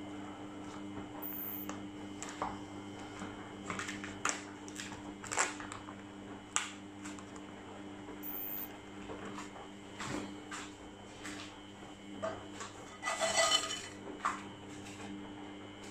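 Cutlery clinking and scraping on a plate while eating, in scattered knocks and clicks with one longer, louder scrape about thirteen seconds in. A steady low hum runs underneath.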